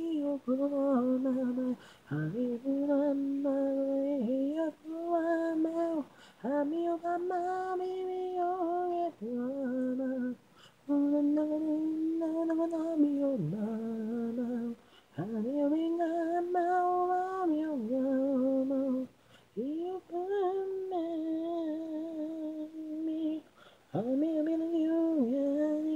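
Isolated, unaccompanied lead vocal of a male J-pop singer: one voice singing long held phrases in a high register, with short breaks for breath between them and no instruments.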